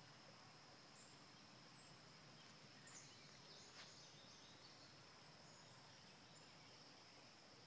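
Near silence: faint outdoor ambience with a steady, faint high-pitched whine and a few brief, faint high chirps. There is a light tap about four seconds in.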